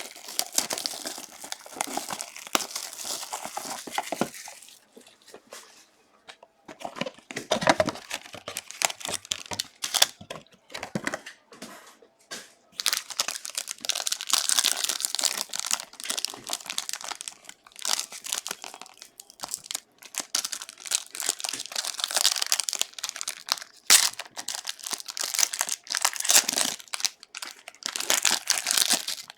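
Plastic wrapping and trading-card pack wrappers being torn open and crinkled by hand, in crackly bursts with a quieter stretch of a few seconds after about five seconds in.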